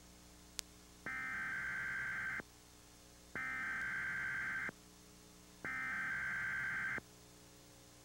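Emergency Alert System SAME header: three identical bursts of buzzing digital data tone, each about a second and a half long with about a second between them, encoding the alert for a required monthly test. A short click comes just before the first burst.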